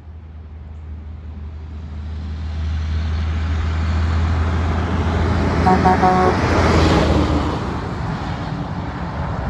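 Diesel dump truck approaching on the road and driving past close by: its engine drone grows steadily louder, peaks about six to seven seconds in as it passes, then begins to fade with tyre noise. A short, broken horn toot sounds just before it passes.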